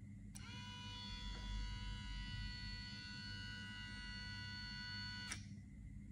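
Small DC motor switched on with a click, spinning up to a steady whine and running for about five seconds. It then stops abruptly with a second click: the protection relay cutting the motor's power as its shaft is held to overload it.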